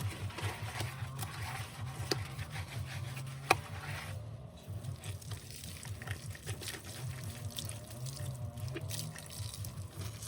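Water running from a kitchen tap into the sink while plates are washed by hand, with small knocks and clinks of dishes and one sharp knock about three and a half seconds in.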